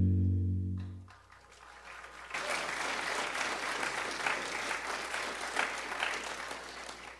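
Held musical notes end about a second in, then a congregation claps, the applause building quickly and dying away near the end.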